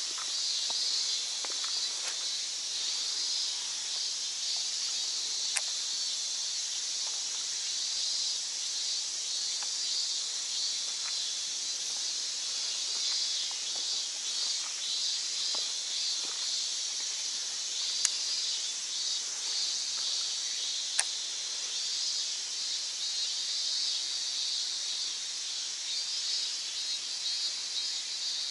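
Steady, shrill chorus of summer insects with a fast pulsing texture, and three short sharp clicks, the last two in the second half.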